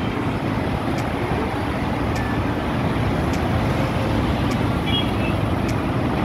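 Steady rumble of road traffic, engines and tyres from the busy road below, with faint short ticks about once a second.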